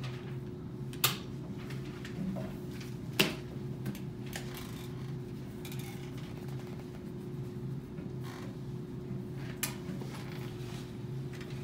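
Steady low hum of room noise, broken by three sharp clicks about one second, three seconds and nine and a half seconds in; the second click is the loudest.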